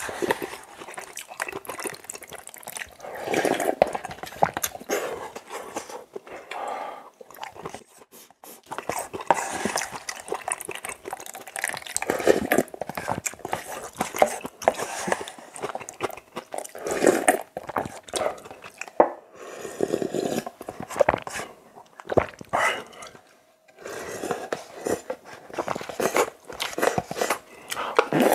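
A person eating spicy cup ramen with rice mixed into the broth: repeated wet slurps of broth and noodles from a spoon and chopsticks, with short pauses between mouthfuls.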